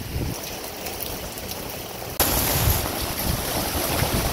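Wind rumbling on the microphone in the rain. About two seconds in, a sudden jump to a louder, steady hiss of heavy rain.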